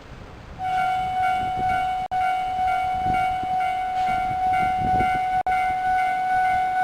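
Japanese railway level-crossing alarm starts about half a second in: the Tobu Kameido Line crossing's former alarm sound, a loud electronic tone held at one pitch with a quick, even pulsing. It breaks off for an instant twice.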